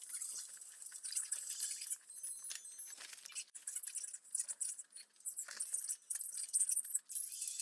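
Light clinking and rattling in irregular small bursts, high-pitched and continuous.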